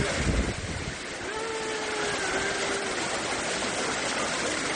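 Floodwater rushing down a city street in a steady, noisy torrent. A low rumble of wind on the microphone sits under it for the first half second.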